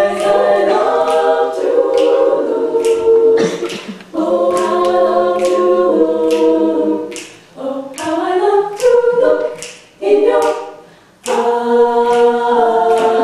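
Women's a cappella group singing in close harmony, held chords broken by short pauses between phrases, ending on a long held chord.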